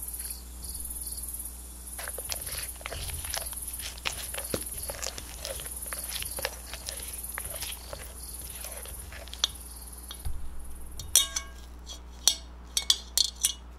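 Silicone spatula stirring and scraping a thick creamed butter, sugar and egg batter in a glass bowl, in soft strokes about once a second with small clicks. Near the end a metal mesh sieve clinks sharply against the glass bowl several times.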